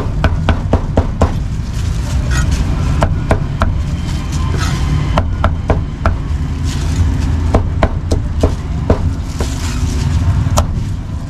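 A steel cleaver chopping braised pork offal and crispy pork belly on a thick round wooden chopping block. The strikes come a few a second in irregular runs, each a sharp knock of the blade through the meat into the wood.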